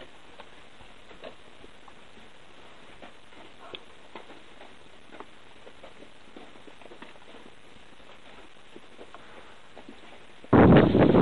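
Faint, irregular clicks and clatters of rocks thrown out by the erupting Arenal volcano tumbling and bouncing down its loose cinder slope. Near the end, loud wind suddenly buffets the microphone.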